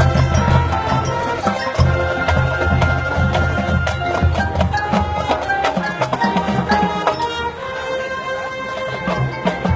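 High school marching band playing: brass and winds holding sustained notes over drums and other percussion, with regular strikes.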